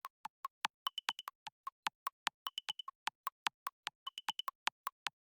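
Quiz countdown-timer sound effect: quick clock-like ticks, about five a second, with short high beeps in groups of four about every one and a half seconds.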